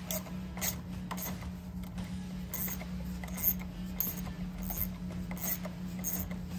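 Steel screwdriver prying at the overrunning clutch on the armature of a Bosch 0 001 415 002 24 V 5.4 kW starter, being taken apart: a series of sharp metal clicks and scrapes, about one every half second to a second, over a steady low hum.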